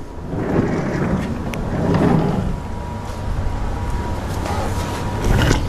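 Large slide-out drawer of a camper trailer being pushed in on its runners: a rumbling slide that builds over the first two seconds, then a steadier background, with a knock near the end.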